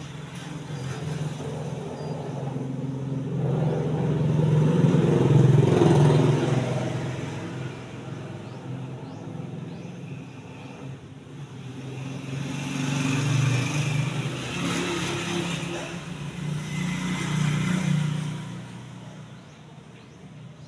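Motor vehicles passing by: one swells up to a peak about five seconds in and fades, then a second stretch of engine noise builds from about twelve seconds in and dies away near the end.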